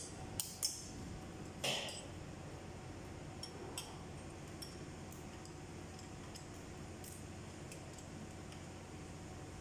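Hand tools clinking against the rocker arms and adjusters of a Perkins 2806C engine's valve train during tappet clearance adjustment. A few sharp metal clinks come in the first two seconds, the loudest about a second and a half in, then fainter light taps, over a steady low hum.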